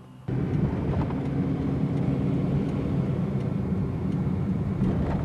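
Loud, steady vehicle rumble with a low engine drone, as heard riding inside a moving vehicle. It starts abruptly at a cut a moment in.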